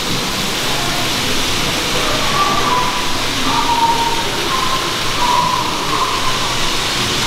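Steady rushing hiss of N-gauge model trains running on a large layout, with a few faint short wavering tones coming and going.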